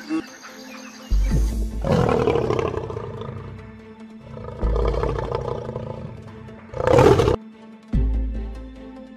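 Lions roaring in a series of loud bursts, the loudest near the end, over background music.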